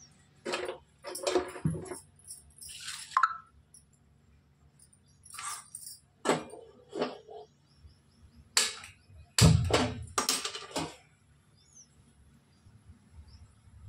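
Intermittent clinks, knocks and rattles of metal kitchen utensils and pots being handled while cooking: about a dozen separate short sounds with pauses between, the heaviest a low knock about nine and a half seconds in.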